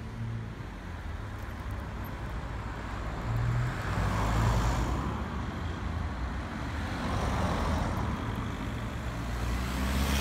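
Street traffic: vehicles driving past over a low engine hum, the noise swelling and fading as each one goes by, about four seconds in and again a few seconds later.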